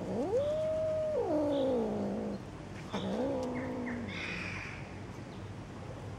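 Cat yowling during mating: one long yowl that rises, holds high, then slides down, followed a second later by a shorter, lower yowl.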